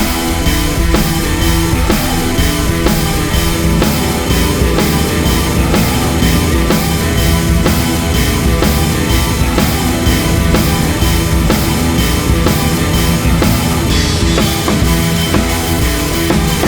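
Rock music with a driving drum kit keeping a steady beat.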